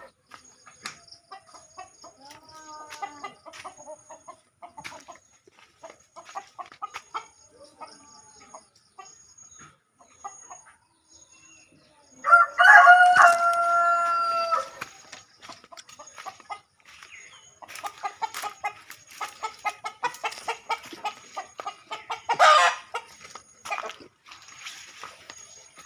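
A rooster crows once, about halfway through, in one long call of roughly two and a half seconds. Around it, chickens cluck in short scattered notes, with a sharp louder squawk near the end.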